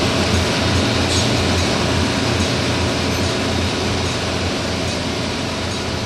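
Steady, loud mechanical drone of offshore drilling rig machinery, a low rumble with a hiss over it.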